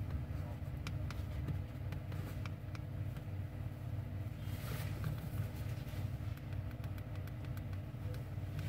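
Steady low mechanical rumble with a faint hum, broken by scattered faint clicks and a brief hiss about halfway through.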